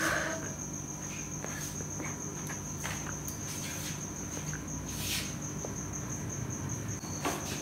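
A thin, high-pitched pulsing trill runs steadily over a low hum, with a few faint soft clicks from handling at the counter.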